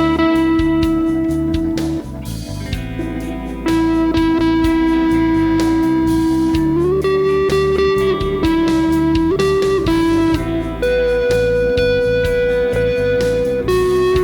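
Electric guitar improvising a slow lead through effects pedals, long sustained notes bent up in pitch several times, over an ambient rock backing track with bass and drums.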